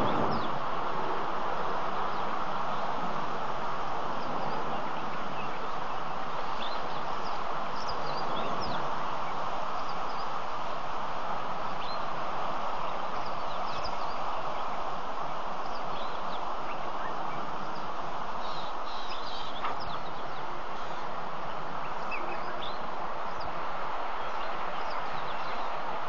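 Outdoor ambience from a waterhole webcam: a steady background hiss with many short, high bird chirps and calls scattered through it.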